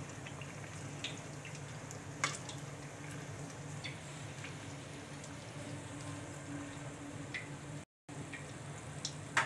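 Bread pakora deep-frying in hot oil in a kadhai: a steady, soft sizzle. A few light clicks of a slotted metal spoon against the pan come as the pakora is turned, the clearest about two seconds in, over a low steady hum.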